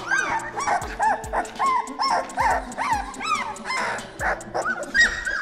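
Two-week-old brindle pit bull puppies whining and squealing: short, high cries that rise and fall, several a second, over background music with a beat.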